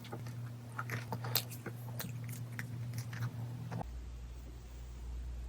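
Close-miked biting and chewing of dessert: a quick run of small crisp clicks and crackles, thinning out after an abrupt change in the background hum about two thirds of the way in.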